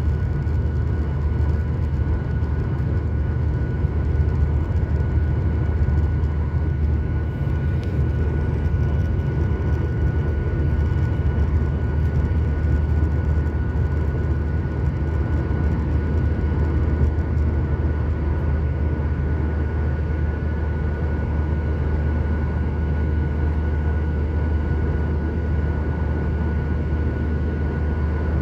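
Cabin noise of a Boeing 737 in its climb after takeoff, heard at a window seat beside the engine: a steady, deep jet engine and airflow rumble with a thin steady whine above it.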